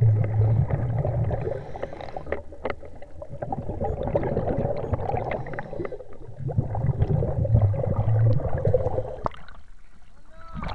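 Sea water sloshing and gurgling against a camera at the sea surface, muffled, with scattered knocks. A low rumble swells twice, at the start and again past the middle.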